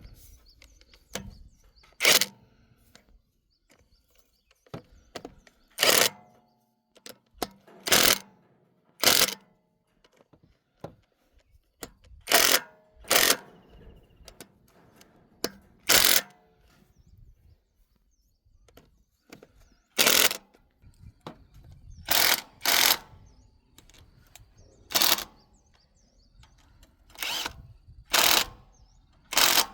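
Hand tools knocking and clanking against metal machine parts during repair work: about fourteen short, sharp knocks at irregular intervals, with faint clatter in between.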